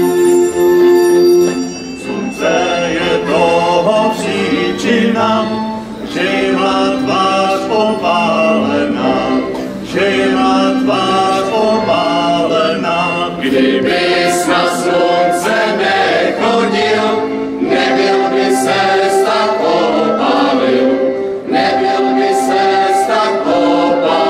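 Three male voices singing a Czech folk Christmas song together.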